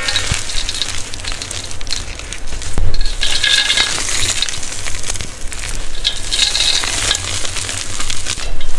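Gym chalk crushed and crumbled between fingers: a dense, continuous crunching crackle, with louder crunches about three seconds in and near the end.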